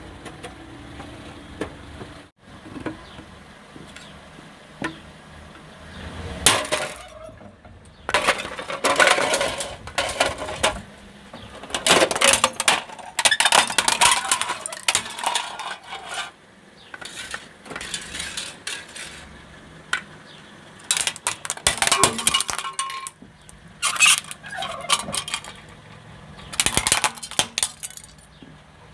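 A car tyre rolling over and crushing small plastic objects such as toys and a plastic bottle: bursts of cracking, crunching and clinking as they break, repeated several times with quieter gaps between.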